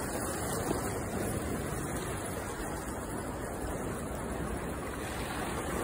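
Small sea waves washing against the boulders of a rocky breakwater, a steady rushing noise.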